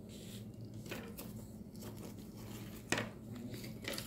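Faint rustling of hands and forearm sliding over a cardboard board while a piece of soft clay is set down on it, with a soft tap about three seconds in.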